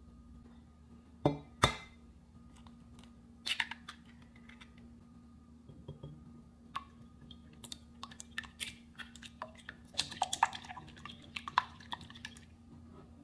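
An egg knocked twice against a hard edge and cracked open, then a whisk with coated wires beating eggs in a Pyrex glass measuring jug, with quick, irregular taps and clinks against the glass.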